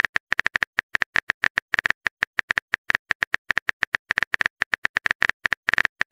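Phone-keyboard typing clicks from a texting-story chat app: a fast, even run of short ticks, about eight a second, as a message is typed out letter by letter.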